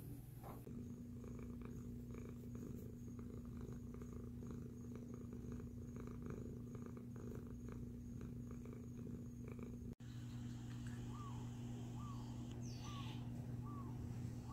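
Domestic cat purring up close, a steady low rumble that pulses with its breathing. In the second half a bird chirps repeatedly in the background, a short falling note about every three-quarters of a second.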